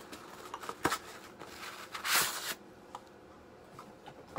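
Hands rustling through styrofoam packing material while unpacking a boxed ornament: a sharp click about a second in, then a brief, louder scraping rustle about two seconds in.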